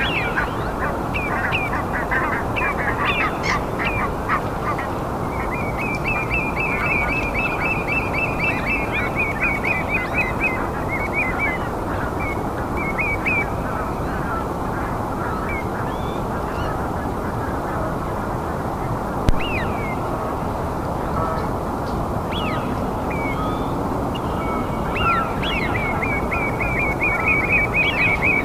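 A dense chorus of wild birds calling, many short calls over a steady rushing background, with a rapid trill of repeated high notes running from about six to ten seconds in and again near the end.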